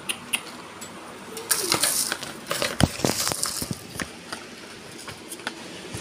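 Handling noise around a wire bird cage: scattered sharp clicks, then a rustling, rattling stretch in the middle with one hard knock about three seconds in.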